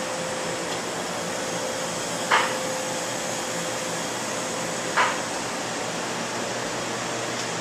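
Steady rushing noise of commercial kitchen ventilation and refrigeration equipment with a faint steady hum, broken twice by a short sharp knock, the two about two and a half seconds apart.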